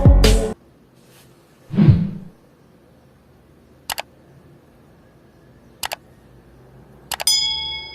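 Sound from a Samsung Galaxy A10s being tested: music playback cuts off half a second in, then comes a soft thump, two sharp clicks about two seconds apart, and a short electronic beep near the end.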